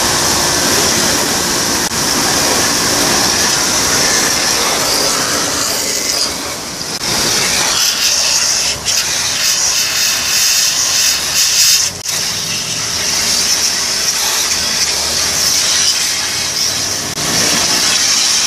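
Pressure washer running: its pump motor drones steadily under the hiss of the high-pressure water jet.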